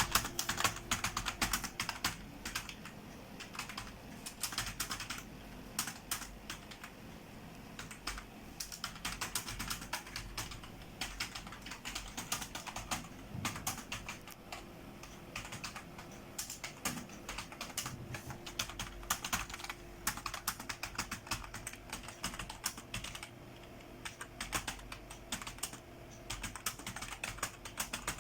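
Fast, continuous typing on an old computer keyboard with flat, stiff keys: a steady stream of uneven key clicks.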